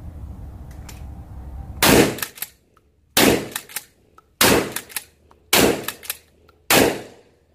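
A Derya Carina CR-201 12-gauge pump-action shotgun is fired five times in quick succession, about one shot every 1.2 seconds, starting about two seconds in. Small clacks of the pump being worked come between the shots as it empties its 4+1 load.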